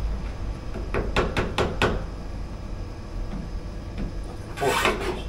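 A quick run of about five sharp clicks about a second in, from a clamp being tightened to hold a spirit level onto a wooden worktop as a straight edge, then a short scrape near the end.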